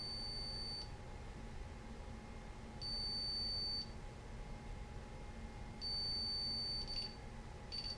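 Keypad beeper of a DSC PowerSeries Neo alarm system giving long, high-pitched beeps of about a second each, roughly every three seconds, with a few shorter beeps near the end.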